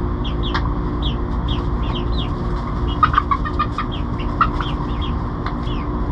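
Easter Egger hens clucking, with short high calls about twice a second and a quicker run of clucks around three seconds in.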